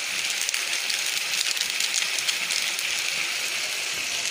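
Thick vegetable curry sizzling steadily in an aluminium kadai, with a few light scrapes and clicks of a metal spatula stirring it.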